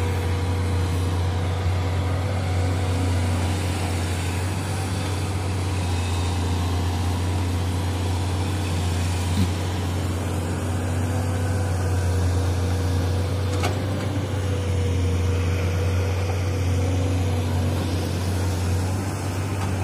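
Diesel engines of a SANY crawler excavator and a dump truck running steadily while the excavator loads soil: a constant low hum with a steady higher tone over it.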